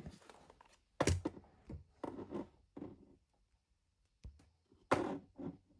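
Handling noises from a Seitz watchmaker's jewel press being moved and set down: a few short knocks and taps, two sharper thunks about a second in and near the end, with light rustling between.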